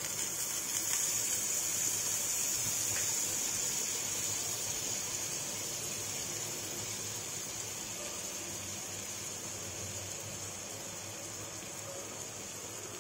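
Butter sizzling as it melts and foams on a hot flat iron griddle pan: a steady hiss that slowly grows quieter.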